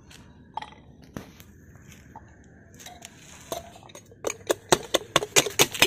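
Ginger and garlic being pounded with a wooden pestle in a steel cup. A few scattered knocks come first, then about four seconds in a fast run of sharp knocks, several a second.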